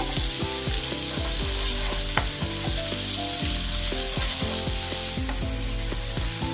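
Chopped onions, green chillies and ginger sizzling in hot ghee in a nonstick frying pan while being stirred and scraped with a wooden spatula, being sautéed with salt and turmeric. There is a sharp tap about two seconds in.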